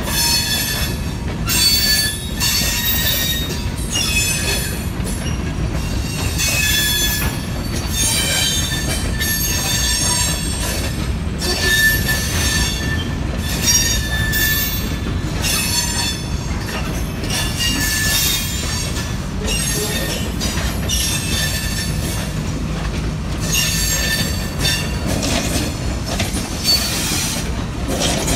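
Steel wheels of a slow freight train of covered hopper cars squealing on the rails again and again, several high pitches at once, over the steady low rumble of the rolling cars.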